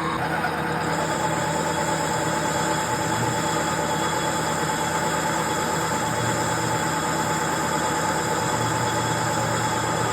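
Clausing 5900 metal lathe running steadily through a cut on a workpiece, with a higher hiss joining about a second in.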